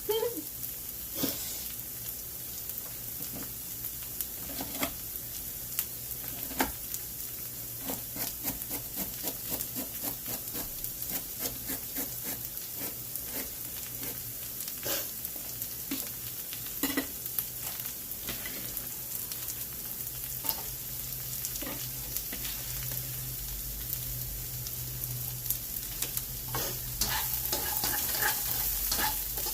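Chopped vegetables sizzling as they fry in a pan, stirred with a utensil that clicks and knocks against the pan again and again.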